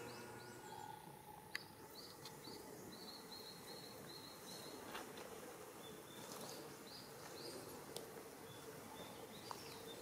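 Shallow water flowing quietly through a concrete irrigation canal, with runs of faint high chirps repeating several times a second and a few light clicks.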